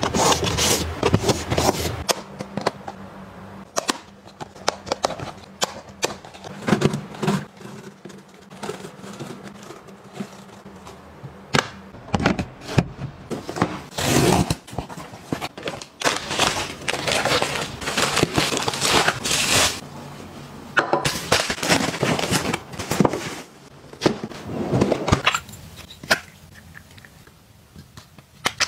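A run of close-up handling noises: sharp clicks and knocks of plastic storage boxes, lids and bottles, with stretches of rustling and scraping, including a box cutter slitting the packing tape on a cardboard box.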